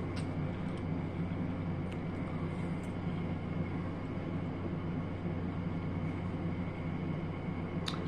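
A steady low hum with a faint constant high whine behind it. A few light clicks of a metal fork against a ceramic bowl of cut watermelon come through, one near the start and a sharper one near the end.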